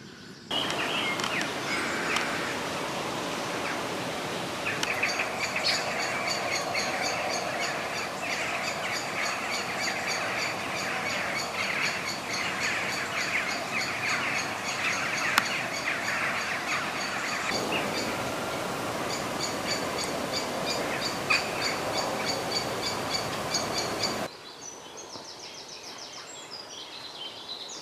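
Dawn chorus of birdsong, rapid repeated high chirps over a steady hiss; the hiss cuts off suddenly near the end, leaving fainter birdsong.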